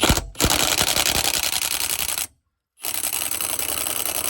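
Ryobi RIWH18X (PBLIW01) high-torque 18 V cordless impact wrench hammering on a rusty lug nut at its lowest power setting. It runs in two long bursts of rapid impacts with a brief stop between, without breaking the nut free.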